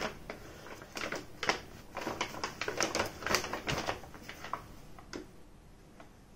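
Paper shopping bag crackling and rustling in quick, irregular clicks as a cat inside it paws at a ball and shifts its weight. The crackling thins out after about four and a half seconds.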